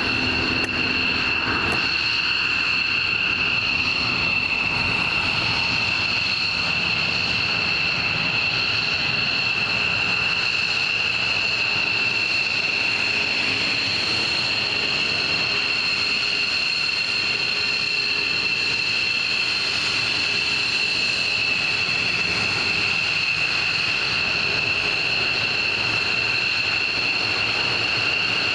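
F-15 Eagle fighter jets taxiing, their twin turbofan engines at low taxi power: a steady high-pitched whine of two held tones over an even rushing noise.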